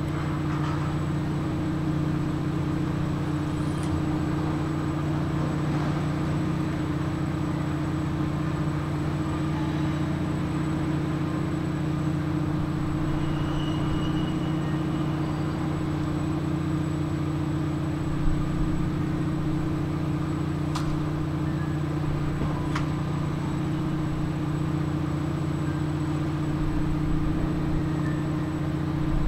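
An engine or similar machine running steadily at constant speed, an even low hum. There is one sharp knock about eighteen seconds in and two faint ticks a few seconds later.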